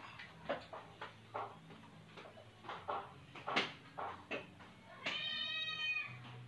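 A house cat meowing once for food, one drawn-out call about five seconds in, after a run of light clicks and taps.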